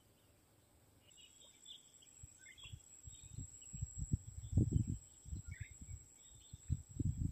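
Outdoor ambience: a steady high insect buzz starting about a second in, scattered bird chirps, and irregular low rumbling that grows louder from about three seconds in.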